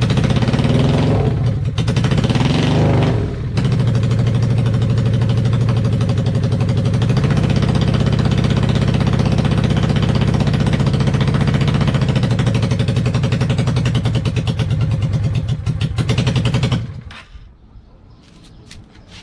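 Honda VLX 600 V-twin motorcycle engine running as it is brought to life. It revs up twice in the first few seconds, then runs steadily before cutting out suddenly near the end.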